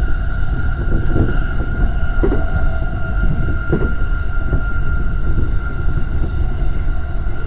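JR East E231-series electric train running between stations, heard from inside a cab at a coupling: a steady low rumble of wheels on rail with a constant high tone over it, and a few brief rattles about one, two and four seconds in.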